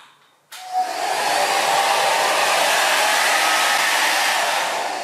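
Brock HD8501RD hair dryer switched on at its second setting about half a second in, blowing with a steady, loud rush of air. The rush dies away near the end.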